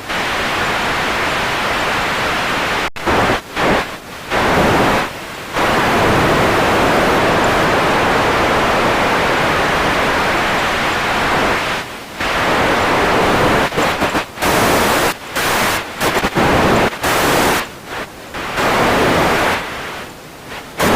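Radio static: a loud, even hiss across all pitches that drops out and cuts back in irregularly, with a run of quick dropouts in the second half.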